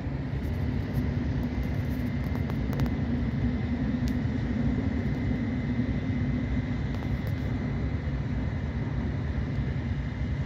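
Diesel freight locomotives running, a steady low rumble with a faint steady whine above it.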